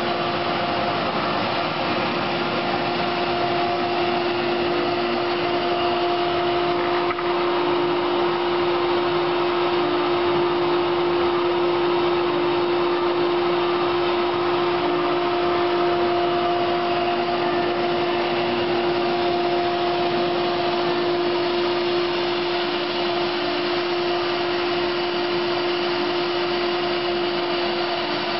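CNC router spindle running with a steady whine, mixed with the rushing air of the dust-collection vacuum drawing through the hose on the spindle's dust shoe.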